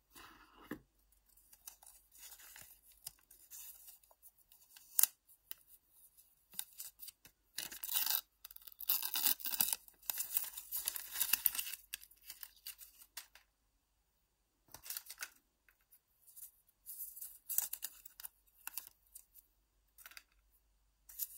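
Thin plastic protective film crinkling and tearing as it is peeled off an Apple USB-C power adapter, in bursts, loudest in a long stretch near the middle, with a sharp click about five seconds in.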